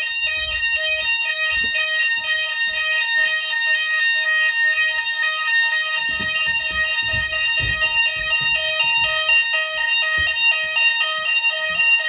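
Notifier/Hochiki ESP fire alarm sounders going off during a weekly system test: one steady high tone under several pulsing tones that repeat about twice a second. Low handling thumps from about six seconds in, as the camera is carried.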